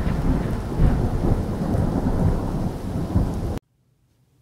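Thunder rumbling over steady rain, loud and heavy in the low end, cutting off suddenly about three and a half seconds in.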